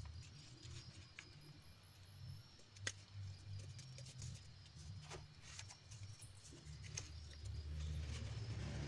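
Faint rustling and creasing of origami paper as it is folded and pressed flat by hand, with a few sharp crackles of the paper, over a low hum.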